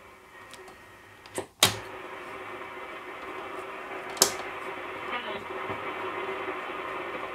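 Grundig Satellit 3400 shortwave receiver's loudspeaker hissing with band static while it is tuned between BBC shortwave frequencies. Two sharp clicks about a second and a half in switch the hiss on louder, and another sharp click comes about four seconds in.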